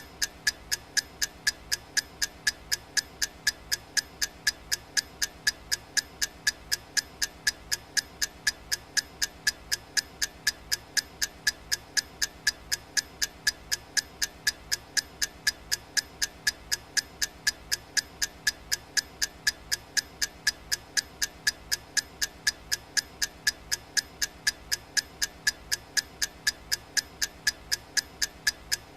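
Clock-style ticking of a countdown timer: evenly spaced, sharp ticks, about two a second, each with a short high ring.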